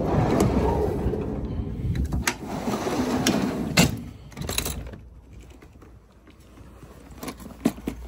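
A work van's sliding side door pulled open with a rumble and a clunk, followed by knocks and clatter of tools being handled and a couple of footsteps near the end.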